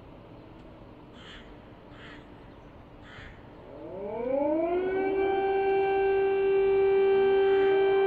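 Air raid siren winding up about four seconds in: its pitch rises over a second or so, then holds as a steady, loud wail.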